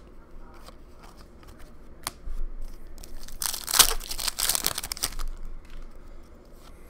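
A foil hockey card pack wrapper is torn open and crinkled by hand. It makes a burst of crackling about two seconds long near the middle, after a single light tap.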